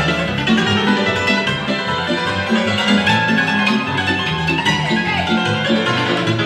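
Hungarian Gypsy band playing lively dance music. The cimbalom's hammered strings run over a steady bass and chord accompaniment.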